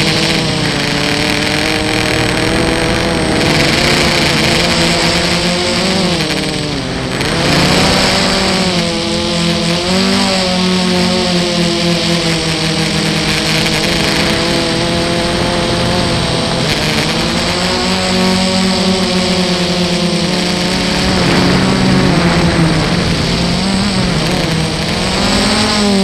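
FPV quadcopter's electric motors and propellers whining, heard close from the onboard camera, the pitch rising and falling as the throttle changes. The level drops briefly about seven seconds in, then comes back up.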